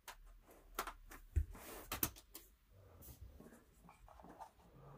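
Faint handling noise of a wired gaming mouse being picked up and moved on a wooden table: light scraping with a few sharp clicks and a soft knock about a second and a half in.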